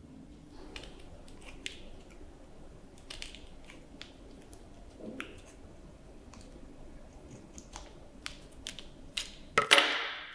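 Scissors snipping paper in short, scattered snips, with a louder rustle of paper near the end.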